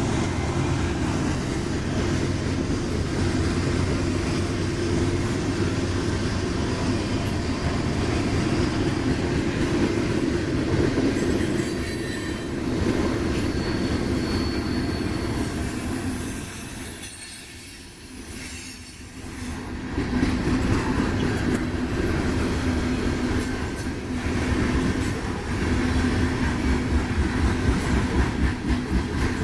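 Union Pacific freight train rolling past, a steady rumble of wheels on rail with some wheel squeal. It drops away briefly about seventeen seconds in, then comes back as loud.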